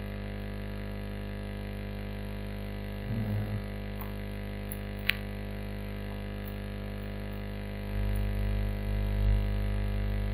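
A steady electrical hum with a buzz of many evenly spaced overtones, unchanged throughout. A single sharp key click comes about five seconds in, and a low rumble swells up over the last couple of seconds.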